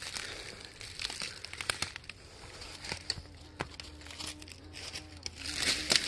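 Footsteps crunching through dry leaf litter and twigs on a woodland path, an irregular run of crackles and snaps. A faint steady hum runs under them from about halfway through until near the end.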